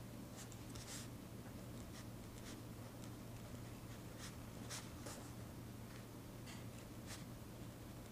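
Handwriting on paper: quiet, irregular scratchy pen strokes coming in short bursts, over a faint steady low hum.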